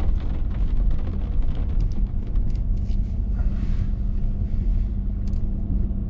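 Vehicle cabin noise while driving: a steady low road and engine rumble with a constant hum, and scattered faint ticks.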